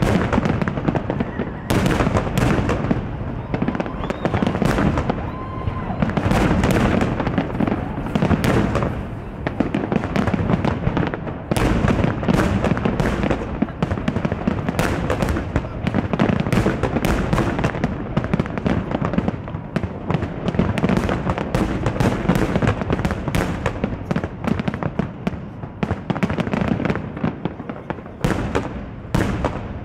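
Aerial firework shells bursting in a dense, continuous barrage of bangs, many overlapping, dying away near the end.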